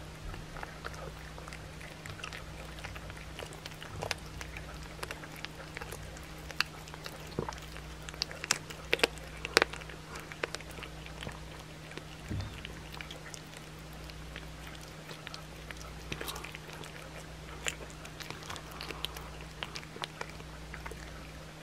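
Blue tortoiseshell cat chewing a raw chicken back, the bones cracking in irregular sharp crunches that come thickest and loudest about eight to ten seconds in.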